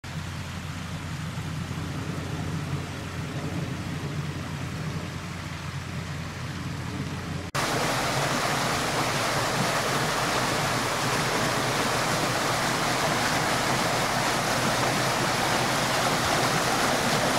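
A low, steady rumble, then about seven seconds in it cuts sharply to the louder, even rush of muddy floodwater pouring through a washed-out road culvert.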